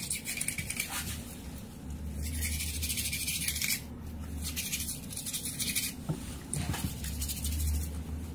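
Soft, irregular rubbing and scratching as fingers scrub a cat's teeth and gums, over a low steady hum.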